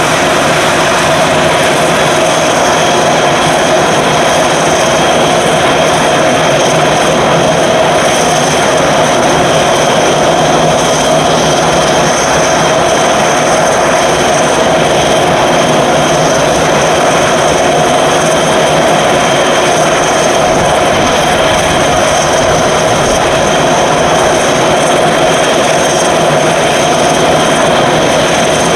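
Dornier Do 328's two Pratt & Whitney Canada PW119 turboprop engines idling on the ground with propellers turning: a loud, steady turbine whine over propeller noise, unchanging throughout.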